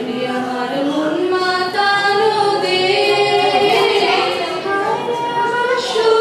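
Two young girls singing a Bengali song, their voices holding long notes and sliding smoothly between pitches.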